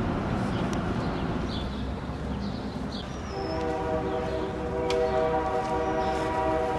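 Steady background noise with a few short high chirps, then, about three and a half seconds in, a long held chord of several steady tones begins and sustains.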